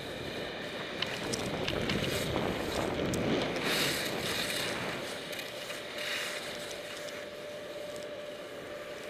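Skis scraping over packed snow at speed, with wind rushing over the helmet camera's microphone, swelling louder a couple of seconds in. A steady hum runs under it from the snow cannons spraying beside the piste.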